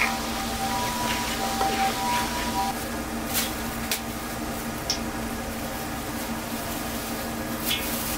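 Oil sizzling in a pan while chili oil is made, dying away about three seconds in, then a few light clinks of kitchen utensils over a steady low hum.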